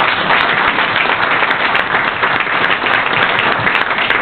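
A roomful of people applauding steadily, a dense, even patter of many hands clapping.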